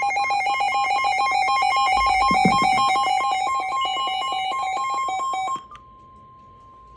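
Weather alert radio alarm: a loud electronic warble rapidly alternating between two pitches. It stops about five and a half seconds in, leaving a quieter steady single tone, the NOAA weather radio attention tone, which signals an incoming warning.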